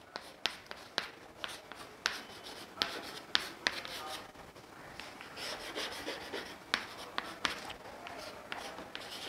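Chalk writing on a chalkboard: scratchy strokes broken by irregular sharp taps as the chalk strikes the board.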